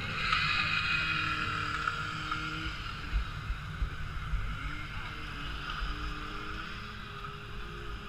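Whitewater rapids rushing around a round ride raft, loudest in the first few seconds, with a few low thumps about midway.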